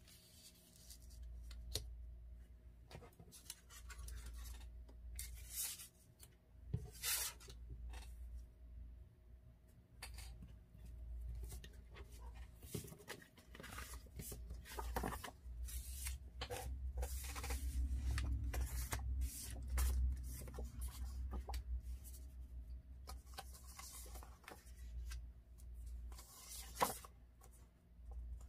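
Paper craft materials (photo prints and cardstock) being handled on a table: irregular short rustles, slides and light taps, with duller handling bumps in the middle.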